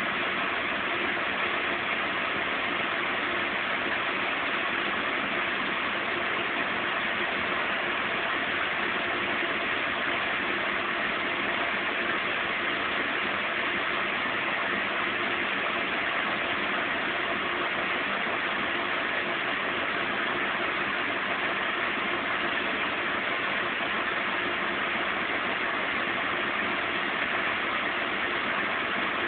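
Zanussi Z 630 washing machine running steadily, an even hiss with a faint constant hum underneath and no change in pace.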